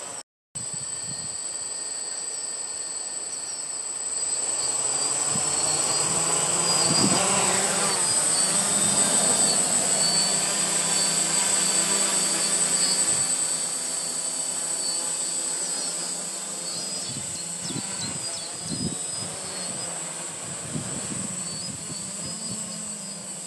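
Quadcopter's four brushless motors and propellers buzzing with a high whine as it hovers and manoeuvres low, the pitch rising and falling as the motor speeds change. Loudest in the middle of the stretch, and briefly cut out just after the start.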